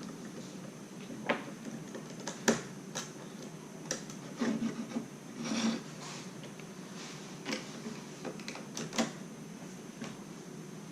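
Small plastic Lego bricks being handled: irregular clicks and short clattering rattles as pieces are picked up, fitted and snapped together, with two brief bursts of rummaging.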